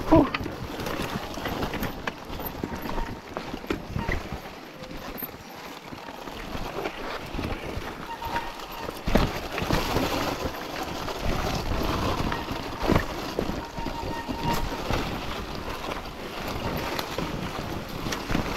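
Sur-Ron electric dirt bike being ridden: an uneven rushing noise with scattered knocks and rattles.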